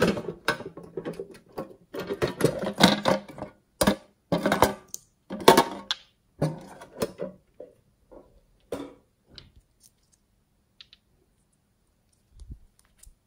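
A thin sheet-metal tin box being handled and opened: a busy run of irregular clicks, taps and rattles of tinplate that thins out after about seven seconds. A soft low thump comes near the end.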